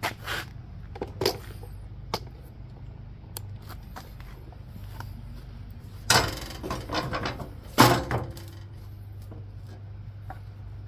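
Knocks and clatter of a John Deere 216 garden tractor's seat and its steel mounting brackets being handled as the unbolted seat is lifted and tipped up. The clatter is loudest about six seconds in and again near eight seconds, over a steady low hum.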